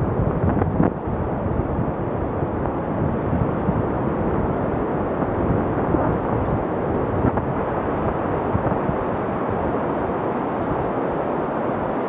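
Steady rush of wind and distant ocean surf, with wind buffeting the microphone in the first second.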